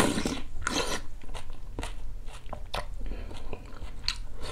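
Close-up eating sounds: a spoonful of acorn jelly in cold broth taken into the mouth, then chewing with many small wet clicks and crunches.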